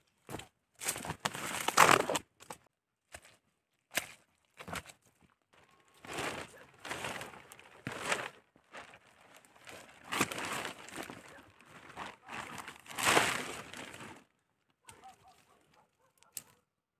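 Irregular rustling and crinkling in separate spells, each up to about two seconds long, with short gaps between them.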